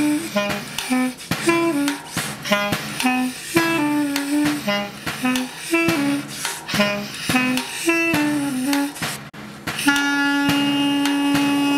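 Clarinet playing an improvised melody in short, quick phrases over sharp percussive clicks. About ten seconds in it settles on one long held note.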